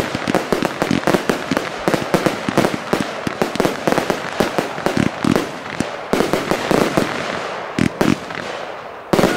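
Fireworks display: rapid bangs and crackling from bursting fireworks, thinning out in the last couple of seconds to a few separate bangs over a fading crackle.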